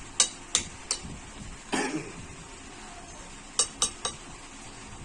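A fork clinking against a plate: three sharp clicks in the first second, a short cough a little under two seconds in, then three more quick clinks near the end.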